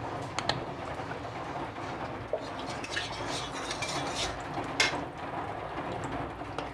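Mustard oil poured from a bottle into an aluminium kadai, with a few light clinks of the spatula and bottle against the pan, the sharpest about five seconds in, over a steady background hiss.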